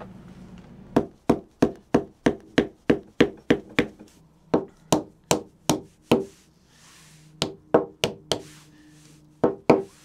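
A wooden baton knocking a carved wooden base gently into the groove of a hollowed green-wood shrink cup: runs of light wood-on-wood taps, about three a second, broken by short pauses.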